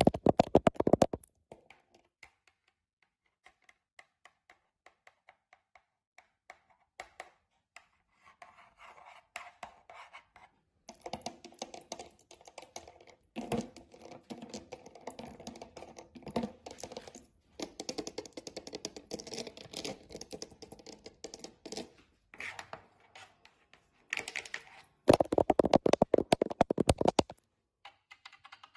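Long acrylic nails decorated with metal charms, tapping and scratching rapidly on household surfaces in bursts of clicks. The bursts come loudest at the start and near the end, with a busier stretch of mixed tapping and scratching through the middle over a faint ring.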